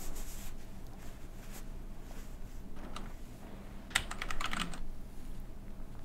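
Typing on a computer keyboard: scattered light key clicks, with a quick run of keystrokes about four seconds in, picked up by a voice-call microphone.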